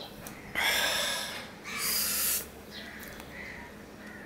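Two loud, breathy mouth noises from a man eating by hand, each about a second long and close together.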